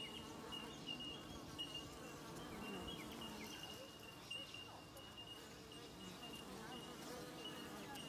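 Honey bees humming around their nest in a tree hollow, with the buzz of single bees rising and falling as they fly past close by. A thin, steady high tone runs behind it, broken by short gaps.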